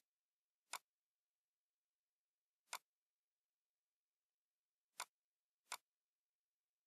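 Computer mouse clicks: five short, sharp clicks at uneven intervals, two of them in quick pairs, with dead silence between.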